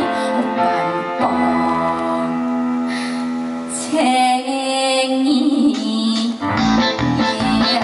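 Live band music with long held notes. A steady beat with low bass thumps comes in about six and a half seconds in.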